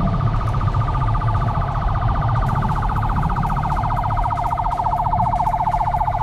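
Electronic siren on a convoy escort motorcycle, sounding a fast warbling tone that pulses many times a second, over low engine and wind noise from the moving bike.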